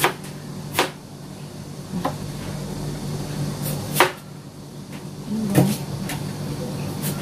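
Kitchen knife cutting tomatoes into large chunks on a wooden cutting board, the blade knocking on the board about seven times at uneven intervals. A steady low hum runs underneath.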